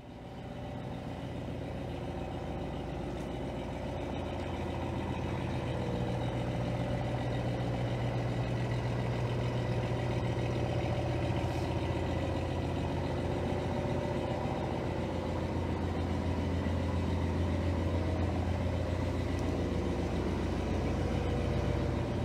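A boat's engine idling with a steady low hum, growing louder over the first several seconds.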